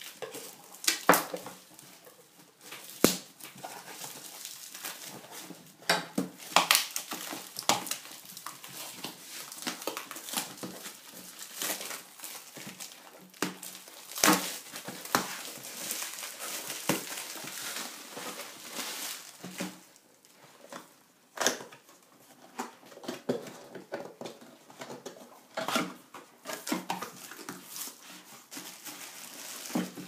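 Plastic shrink wrap being cut and torn, then bubble wrap and cardboard packaging crinkling and rustling, in irregular sharp crackles.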